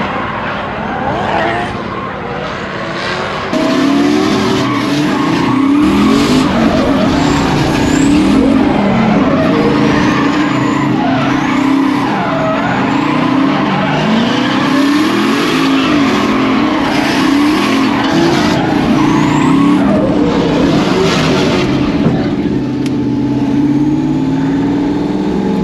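Twin-turbo 5.3-litre V8 of a Corvette C6 drift car revving up and down hard through a drift, with tyres skidding and squealing. It gets louder about three and a half seconds in.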